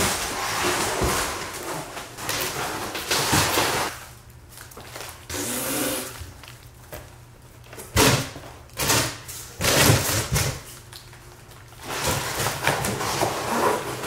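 Cardboard shipping boxes being handled while a forged aluminium wheel is packed into one: scraping and rustling of the cardboard and box flaps, with several sharp knocks in quick succession about two-thirds of the way through.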